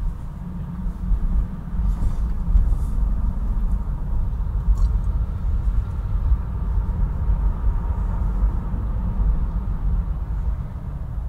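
A car driving through city streets, heard as a steady low rumble of road and engine noise.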